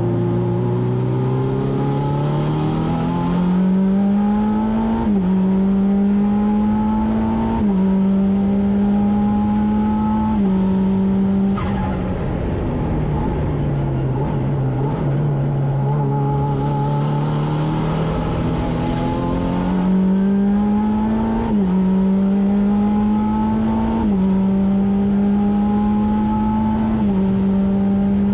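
Saker RapX race car engine at full throttle, heard from inside the cabin: its note climbs and steps down at each quick upshift. About twelve seconds in the revs fall away and stay low for a few seconds, then it pulls up through the gears again.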